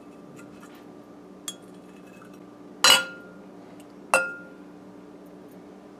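Metal teaspoon clinking against the rim of a bowl, knocking off the chalazae lifted from raw egg yolks. There is a faint tap, then two sharp clinks about a second and a quarter apart, each ringing briefly.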